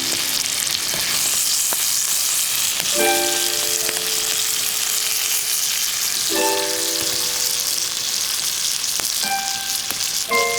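Steady sizzling and crackling of a scrap-wood fire, with a few faint sharp pops. Sparse background music notes sound roughly every three seconds, each fading out over about a second.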